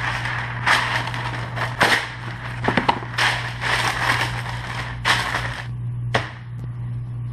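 Sheet of parchment paper crinkling and rustling as it is pulled from its box and smoothed over a metal baking sheet, in several bursts with a few sharp crackles over about five and a half seconds. A single sharp knock about six seconds in.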